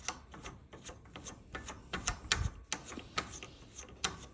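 Light, uneven clicking and ticking as a black plastic hand knob is unscrewed by hand from the ski mount of a ski bike.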